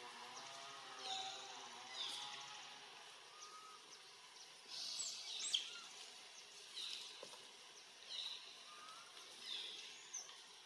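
Faint outdoor ambience with a series of short, high-pitched chirping calls, one every second or so, with a louder cluster about five seconds in.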